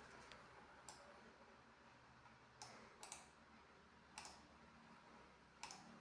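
Near silence with a handful of faint, scattered clicks.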